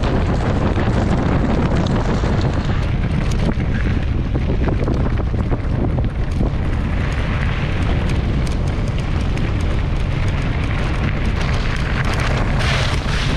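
Heavy wind buffeting an action camera's microphone, a steady loud rumble with many small clicks and knocks running through it.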